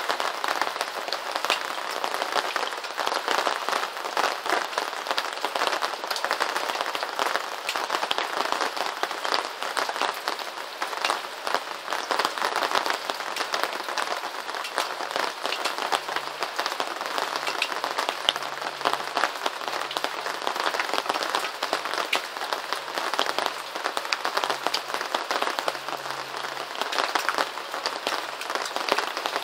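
Steady rain pattering on a surface: a dense, even hiss made of countless small drop ticks.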